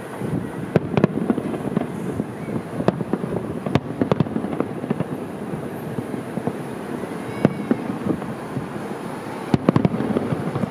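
Fireworks display: aerial shells bursting in sharp bangs at irregular intervals, with a quick cluster of several bangs near the end.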